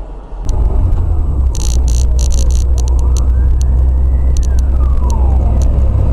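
Car on the road with a steady low engine and road rumble, scattered sharp clicks and rattles, and a faint siren wailing in one slow rise and fall. The sound cuts in abruptly about half a second in.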